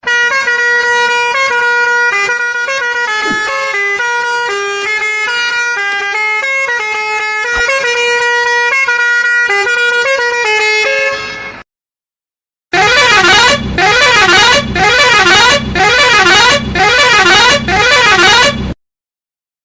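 Bus musical horn playing a stepping multi-note tune for about eleven seconds, then, after a short gap, six short blasts with a warbling pitch.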